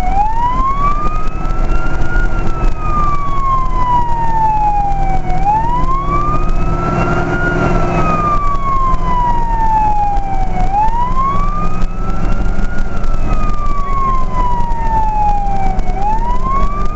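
Fire truck siren wailing, its pitch climbing quickly and then sliding slowly back down about every five seconds, over the steady drone of the truck's engine.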